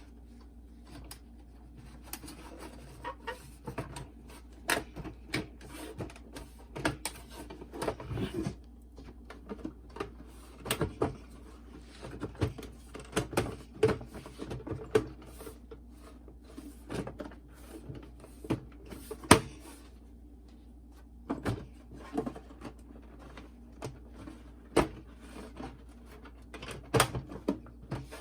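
Hand reassembly of a Sony CFD-454 boombox: irregular clicks and knocks of plastic parts and a circuit board being fitted and pushed into place in the casing, with one louder knock about two-thirds of the way through.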